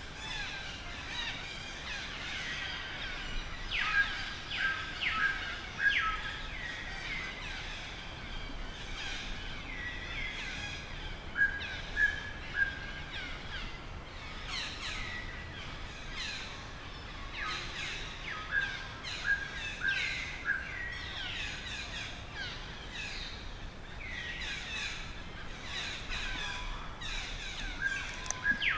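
Birds chirping: many short, high chirps that fall in pitch, coming in quick series, with short repeated lower notes among them and a faint hiss of outdoor background.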